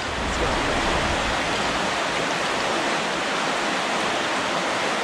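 Shallow creek water flowing steadily around the wader's legs and over the rocks, an even rushing hiss, with a low rumble beneath it for the first couple of seconds.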